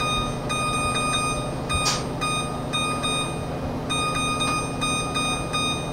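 Electronic beeping from an oven's touch control panel as a timer is set: one steady high tone that sounds in long stretches broken by short gaps, with a brief click about two seconds in.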